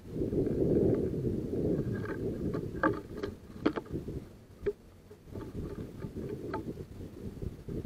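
Wind rumbling on the microphone, with a few sharp taps from house sparrows pecking seed and moving on the wooden feeder tray.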